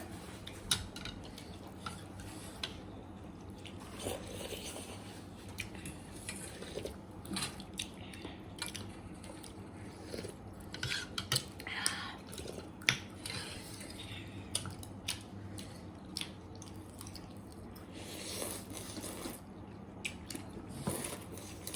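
Eating sounds: cutlery clicking and scraping against a bowl and plate at irregular moments, with chewing and wet sounds of noodle soup being eaten.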